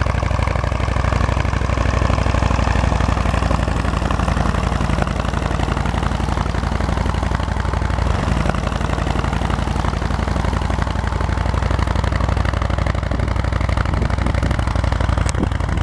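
A V4 engine idling steadily, with a fast, even beat of firing pulses.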